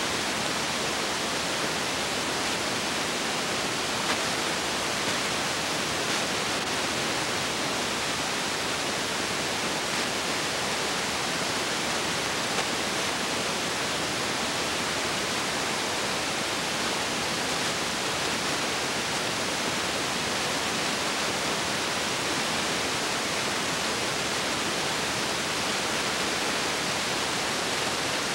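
Steady, even hiss with no other sound: the background noise of a transfer of silent film footage.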